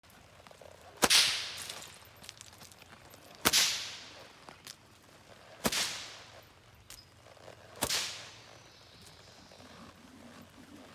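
A long whip cracked four times at a steady pace, about two seconds apart, each crack sharp with a short ringing tail that dies away.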